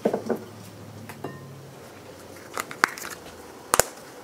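Hand-twisted pepper grinder crushing peppercorns: a few sharp, crackling clicks near the end. At the start there is a brief knock, and about a second in a light metal clink.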